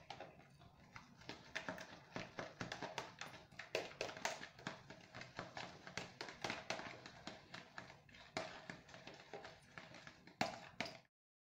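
Food being mixed by hand in a plastic measuring jug: rapid, irregular taps and knocks of the jug and its contents, several a second. It stops abruptly near the end.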